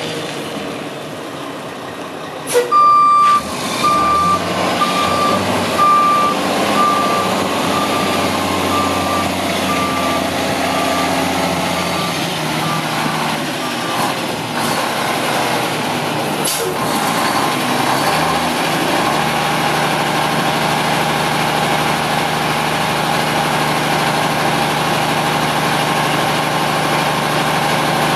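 1999 Mack RD688S tractor's diesel engine running as the truck backs up, its reversing alarm beeping about once a second. The beeping stops about halfway through, a sharp hiss of air from the brakes follows, and the engine then idles steadily.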